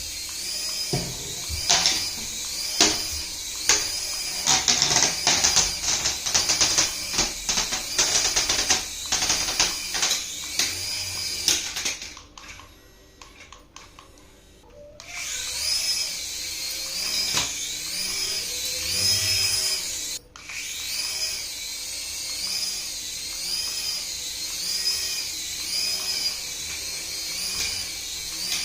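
High-pitched whine of a small electric toy motor, its pitch wavering up and down about once a second, with a quick run of clicks and knocks in the first part. The sound drops away for a few seconds about halfway through, then the whine resumes.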